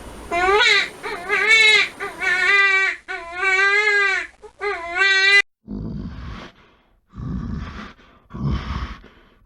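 An animal giving a run of high, wavering cries, like a wail. It cuts off about five seconds in. A different animal then gives four short, rough grunting calls.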